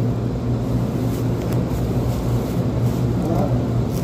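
Steady low background hum with no breaks or changes.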